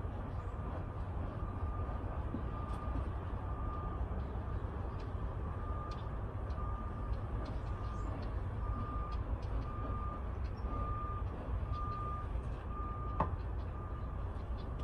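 A vehicle's reversing alarm beeping on one high pitch about once a second, over a steady low rumble.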